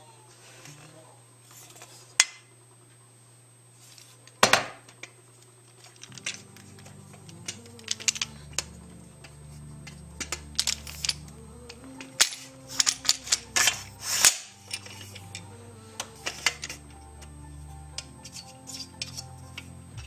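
Metal clicks and clanks from an aluminium quick-release bicycle luggage rack being handled, its struts and clamp knocking together. There is one louder clank about four and a half seconds in and a dense run of clicks in the middle. Background music with low notes comes in about six seconds in.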